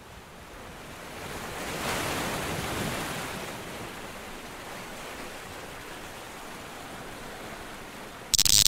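A rushing noise without any tone in it swells in over about two seconds, then holds steady a little lower, with a short, much louder burst of hiss near the end.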